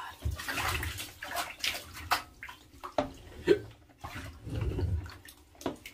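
Water sloshing and splashing in a bathtub as a soaking blanket is stirred and pressed by hand, in irregular swishes with a few sharper splashes.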